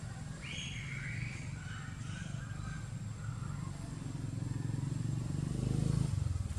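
Low motor rumble of a vehicle in the background, growing louder to its peak near the end, with a few faint higher sounds about half a second to two seconds in.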